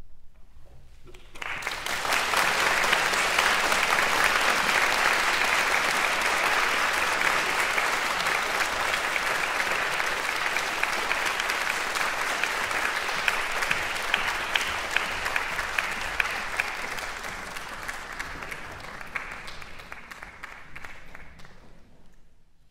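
Audience applauding, beginning about a second in after a brief quiet, holding steady and then tapering off near the end.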